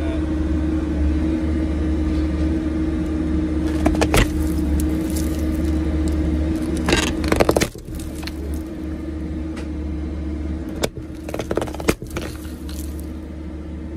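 Pipe-bursting rig's engine running steadily under load. Over it come scraping and sharp cracks as the bursting head and new plastic pipe are pulled through the old clay tile sewer line, breaking the clay and pushing soil aside: one crack about 4 s in, a cluster around 7 s, and several more around 11 to 12 s.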